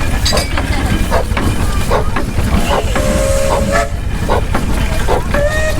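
Steam engine running, with a steady low rumble and a string of short irregular puffs and knocks. A brief steady tone sounds twice, about three seconds in and again near the end.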